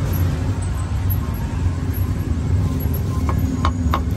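Steady low rumble of passing street traffic. Near the end come four sharp knocks in quick succession, a cleaver chopping roasted meat on a block.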